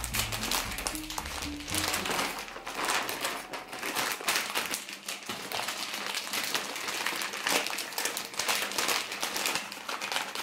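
Crinkling of a chip bag and aluminium foil as they are rolled and pressed by hand, with background music.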